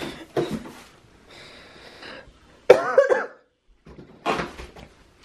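Cardboard stroller box being handled, with scattered rustles and scrapes of its flaps and packing. A little past halfway comes one short, loud sound from a person's voice, the loudest thing here.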